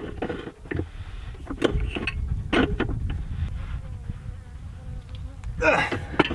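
A fly buzzing close by, with several short scrapes and clicks, the loudest near the end, as a pipe wrench tightens a greased threaded fitting onto a PVC irrigation riser pipe.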